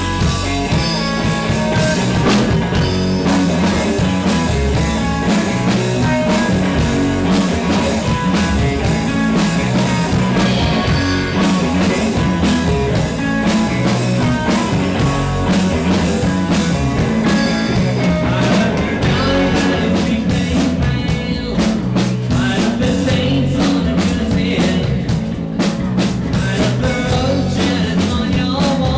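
A three-piece rock band playing live and loud: electric guitar, electric bass guitar and a drum kit.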